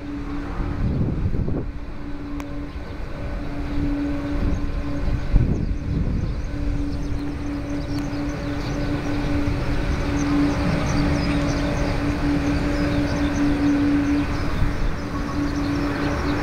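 Boeing 777-200 jet engines running at low taxi power as the airliner rolls slowly along the runway. A steady, constant-pitched drone sits over a low rumble and grows slowly louder.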